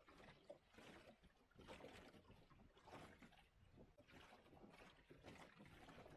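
Faint water washing and gurgling against the hull of a small wooden sailboat under way, in irregular swells about once a second.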